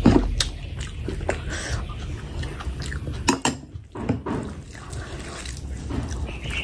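Close-up wet eating sounds: chewing a mouthful of rice and mutton fat curry with lip smacks and sharp mouth clicks, and the squelch of fingers mixing and scooping curry-soaked rice. The loudest smack comes just after the start.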